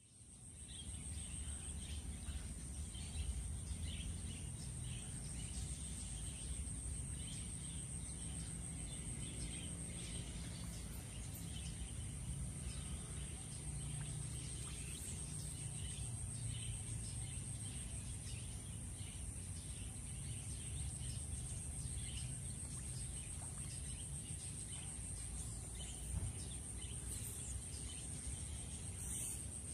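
Outdoor ambience: a steady, high-pitched insect drone with scattered bird chirps over a low rumble.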